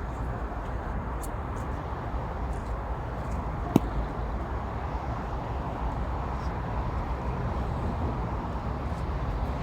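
Steady rumble of road traffic on the bridge overhead, with one sharp click about four seconds in.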